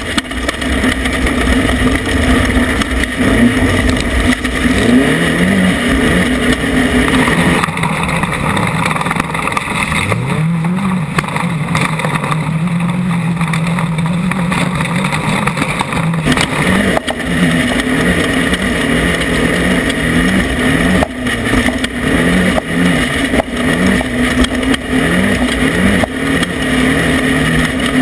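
An off-road race vehicle's engine is driven hard over rough ground, with a dense rumble and knocks throughout. Its pitch climbs and drops back over and over, about once a second near the end, with a longer steady climb about ten seconds in.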